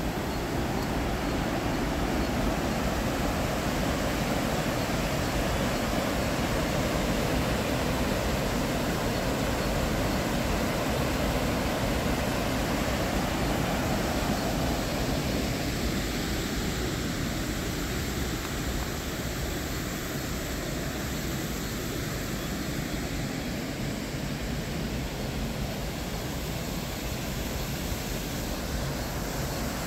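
Water rushing over a low river weir: a steady, even rush of noise, mostly low in pitch, that eases a little about halfway through.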